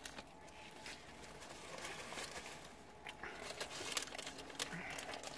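Close-up chewing of a sourdough sandwich: many quick wet clicks and smacks of the mouth, coming thicker near the end.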